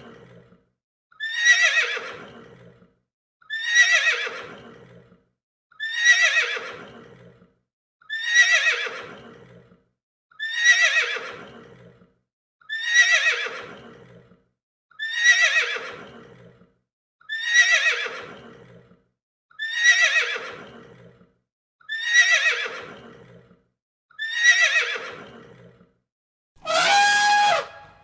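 A horse whinny sound effect looped about a dozen times, one every two seconds or so, each call falling in pitch and fading out. Near the end it gives way to a steady-pitched elephant trumpet call.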